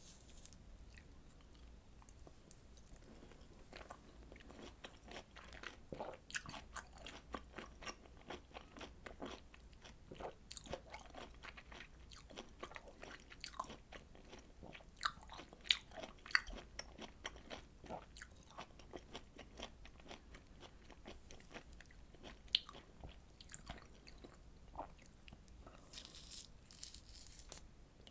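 Close-miked chewing of juicy citrus fruit segments: many small wet crunches and squishes in an irregular run, with a few sharper ones past the middle.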